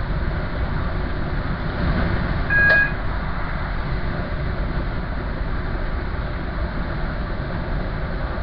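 Steady rumble of a moving train heard from inside the front of the train. A short, high beep sounds once, about two and a half seconds in.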